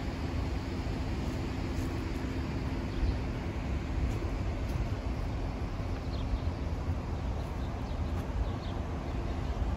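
Outdoor park ambience: a steady low rumble of distant traffic, with a few short bird chirps in the second half.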